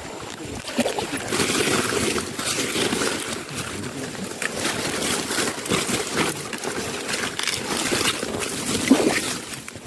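Rustling and brushing of leaves and undergrowth as someone pushes through dense vegetation, with handling noise close to the microphone; an irregular crackly rustle throughout.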